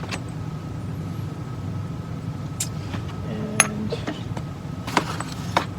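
A few light metallic clinks of hand tools and transmission parts being handled, over a steady low hum.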